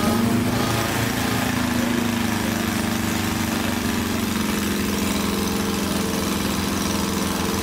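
Quarter-scale model four-cylinder inline aircraft engine running steadily, its pitch easing down a little over the first few seconds and then holding even.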